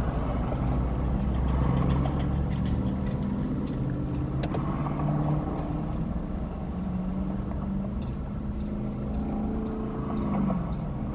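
A motor vehicle's engine running close by, its pitch drifting and then falling away near the end, heard through an open car window. There is one sharp click about four and a half seconds in.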